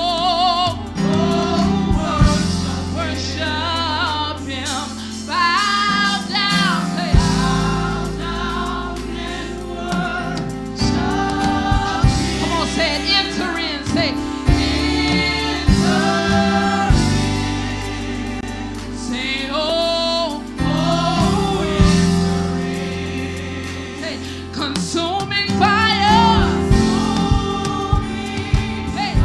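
A women's gospel praise team singing together into microphones, their voices wavering with vibrato, over keyboard accompaniment with long held bass notes.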